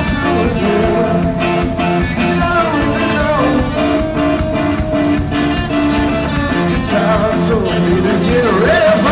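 A live band plays amplified music with electric guitars, loud and steady throughout.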